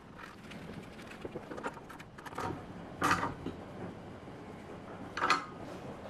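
Small clicks and handling noises of hand work on a rear shock absorber's mounting bolts, with two louder, short scraping sounds, one about three seconds in and one near the end.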